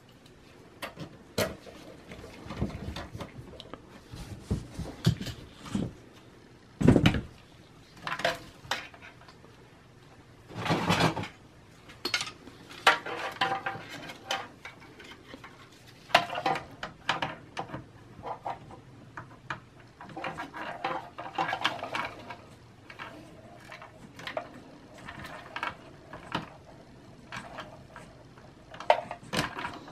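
Sheet-metal drive caddy and steel computer chassis clinking and knocking as the caddy is handled and fitted into the case, with irregular clicks, a sharp knock about seven seconds in and a short scraping rustle around eleven seconds.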